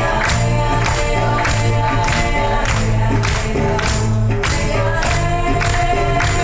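Song with singing and a steady, quick beat, played loud over a stage loudspeaker system.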